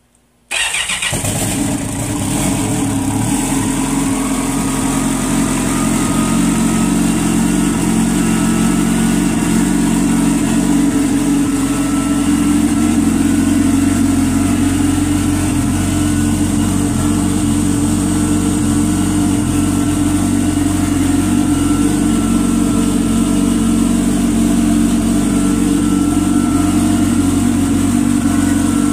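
Yamaha personal watercraft's turbocharged SHO engine starting, catching abruptly about half a second in, then idling steadily after its rebuild.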